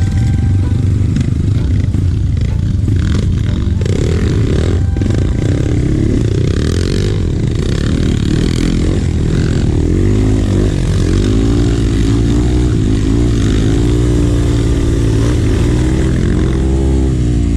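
Trail motorcycle engine running, its pitch rising and falling repeatedly as the throttle is opened and closed, with some clattering.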